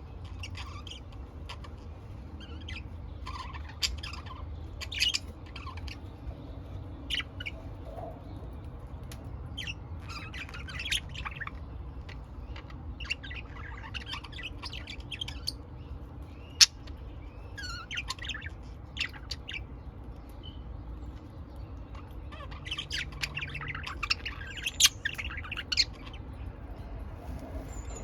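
Pet budgerigars chirping and chattering in short scattered calls that come in busier flurries now and then, over a low steady hum. There is one sharp click about two-thirds of the way through.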